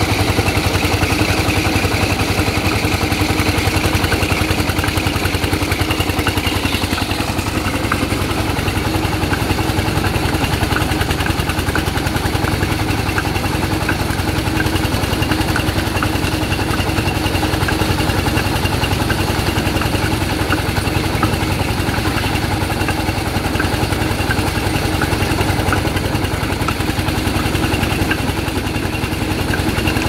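Small electric motor spinning the threshing drum of a homemade cardboard-and-PVC toy rice thresher, running steadily with scattered light ticks.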